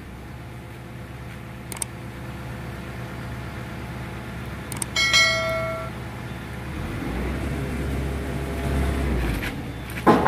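Steel parts of a hydraulic breaker and its holder being handled over a steady low engine hum, with a few sharp metal knocks. About five seconds in, a clank sets off a ringing metallic tone that fades over about a second.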